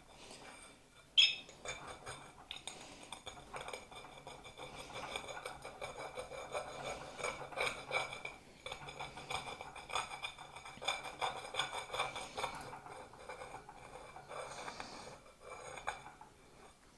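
A glass scorer scratching along a china plate's glazed rim in repeated strokes, a scraping sound like a chalkboard being scratched. There is a sharp clink about a second in.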